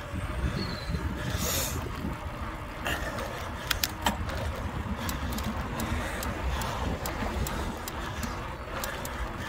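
Wind rumbling on a phone's microphone as a mountain bike rides along a tarmac road. From about four seconds in come light, sharp clicks, settling into a run of about three a second.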